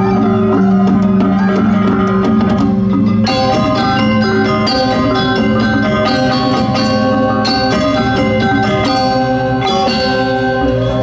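Balinese gong kebyar gamelan ensemble playing a tabuh kreasi: bronze metallophones, gongs and drums struck in fast interlocking strokes. About three seconds in, the sound grows brighter and denser.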